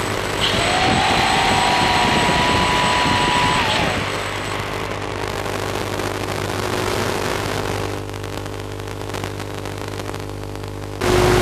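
A motor revving up, holding a steady high pitch, then stopping about four seconds in, over a steady electrical hum. A sudden louder sound starts near the end.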